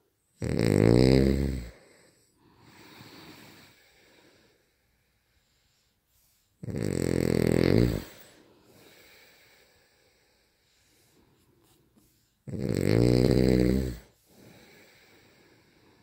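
Loud snoring: three long snores about six seconds apart, each a low buzz lasting over a second, with quieter breaths between them.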